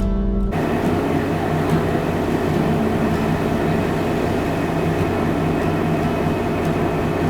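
Ferry engine running steadily under way: a low hum beneath a broad rushing noise, starting about half a second in.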